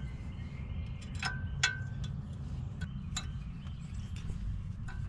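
Light metallic clinks of an 8mm wrench on the grease fitting of a new tie rod end, a handful of irregular taps, some with a brief ring, the clearest about a second and a half in. A steady low rumble runs underneath.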